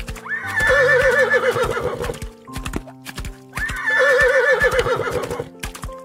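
A horse whinnying twice, each whinny about two seconds long with a quavering pitch, over background music.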